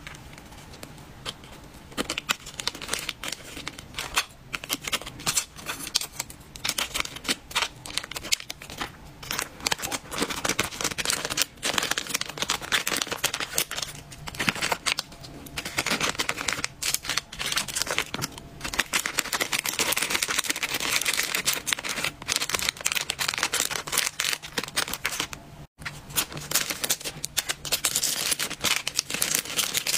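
Thin plastic packaging crinkling and rustling in the hands, with small clicks and taps, as wrapped candies and trinkets are packed into clear plastic bags. The crackle is continuous and irregular, busier in the second half.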